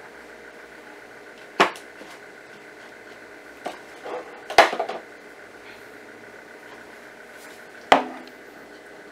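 Glass jars and containers being set down on a granite countertop: three sharp knocks, with a cluster of smaller clinks and taps around the middle one. A faint steady hum runs underneath.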